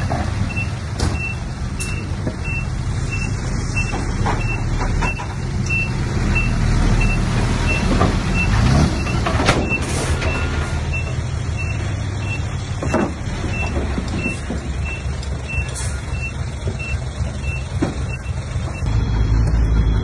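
Diesel engines of a dump truck and a small crawler bulldozer running steadily, with knocks of rock and soil falling from the truck's raised bed. A reversing alarm beeps about twice a second until about halfway through, then stops, and the engine sound grows louder near the end.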